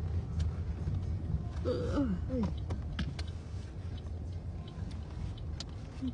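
Low steady rumble of a car running inside its cabin while it is eased into a parking space, with scattered light clicks and a short voice sound about two seconds in.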